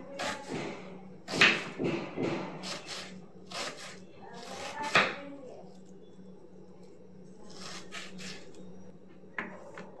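Kitchen knife chopping a red onion on a wooden cutting board: irregular knocks of the blade striking the wood, with a quicker run of chops about eight seconds in.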